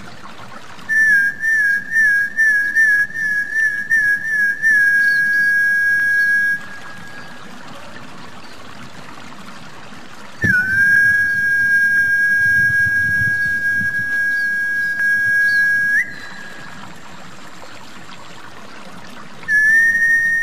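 High-pitched whistled snakehead lure call: a run of about eight quick warbling notes that settles into a held note, then after a pause one long steady whistle, and another whistle starting near the end. A faint trickle of water runs underneath.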